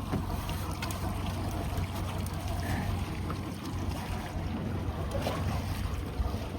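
Fishing boat's motor running with a steady low hum, with water noise over it.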